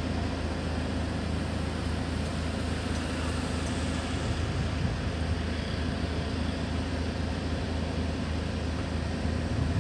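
Steady low rumble of running machinery, even throughout with no distinct events.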